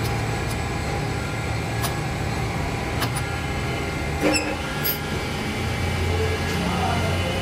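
Steady hum of metal-lathe machinery, with a few light metal clinks from the lathe's toolpost and handles being set by hand; the loudest clink comes about four seconds in.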